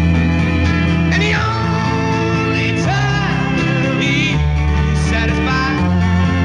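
1960s rock recording: a male lead vocal with held, wavering notes over electric guitar, sustained organ chords and bass guitar.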